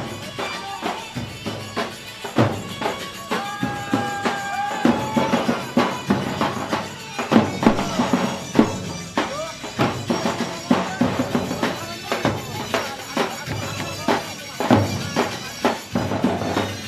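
Live folk wedding music led by a tabl drum beating dense, driving strokes, with a melody instrument holding a long note a few seconds in.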